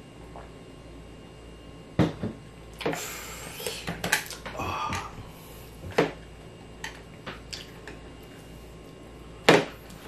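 Handling on the table: a few sharp knocks and clatters of bamboo skewers and a cup against the tray and table, with rustling in between; the loudest knock comes near the end.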